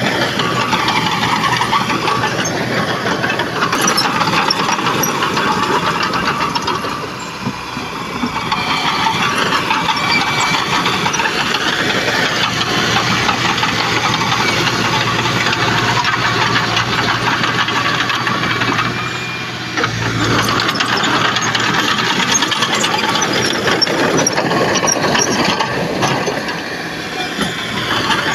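Heavy diesel earthmoving machine working, its engine running steadily with metallic rattling and clanking over it. The engine eases off briefly twice.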